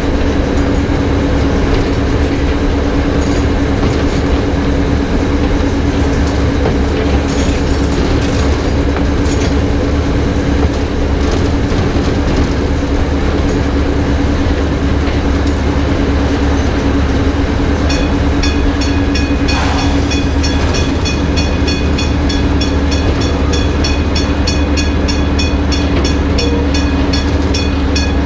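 Small diesel shunting locomotive Kö 5049 running along the track: its engine gives a steady drone, with a few clicks from rail joints early on. About two-thirds of the way in, an electric warning bell starts ringing rapidly, about five strokes a second, as the locomotive nears a level crossing, and there is a brief hiss just after.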